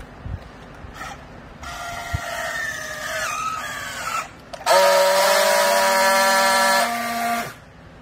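Battery-powered handheld strapping tool on a plastic bale strap. Its motor whines for about two and a half seconds, its pitch sagging as the strap is pulled tight. After a short pause comes a louder, steady buzz of nearly three seconds as the tool friction-welds the strap joint, and it cuts off sharply.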